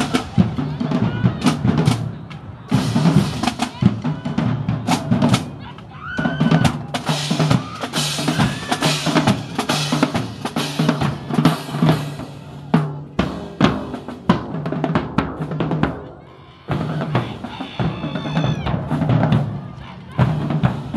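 Marching band drumline playing a fast street cadence: snare drums, bass drums and crashing cymbals, with a short break about sixteen seconds in before the beat picks up again.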